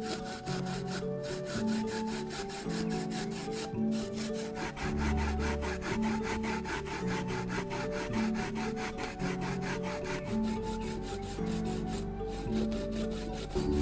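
Fresh coconut flesh grated by hand on a flat perforated stainless-steel grater: a rapid, even rasping of strokes as shreds fall into a metal pan. Soft instrumental music plays underneath.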